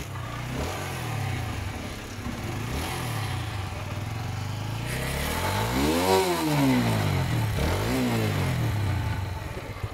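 TVS Apache RTR 4V's single-cylinder four-stroke engine running and being revved on the throttle several times, the pitch rising and falling, with the highest rev about six seconds in and another near eight seconds. The engine has just been rebuilt with a new piston and now has more compression.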